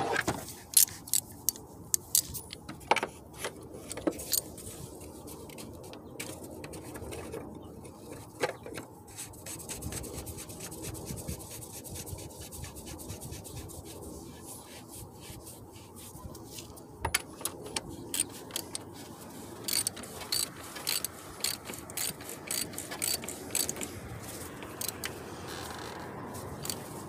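A hand socket ratchet clicking as it turns, in a long fast run of clicks near the middle, with sharper separate clicks and taps of metal tools before and after.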